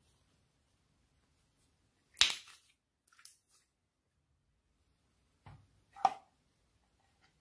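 Slime and containers handled over a glass dish: a sharp click about two seconds in, a few faint ticks after it, then a soft thud and another sharp click near six seconds, with quiet in between.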